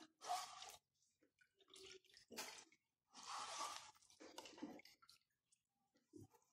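Hands squeezing and kneading wet ground corn pulp in a metal sieve, washing the last of the starch out into water: faint, irregular wet squishes and drips.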